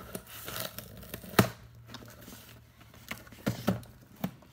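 A package being handled and torn open by hand: rustling and tearing of the packaging, with several sharp clicks and knocks, the loudest about a second and a half in and two close together near the end.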